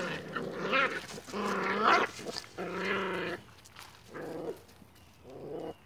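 Staghound–pit bull cross puppies play-fighting, growling and barking in a string of about five short calls, some rising in pitch.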